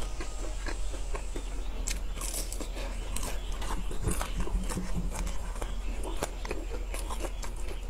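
Close-up chewing of a grilled sausage: a steady run of short mouth clicks and smacks.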